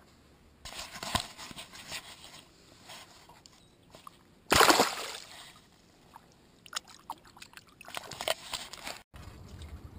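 Water splashing and sloshing as a barbel is lowered by hand into the river and released, with one loud splash about halfway through and smaller splashes before and after.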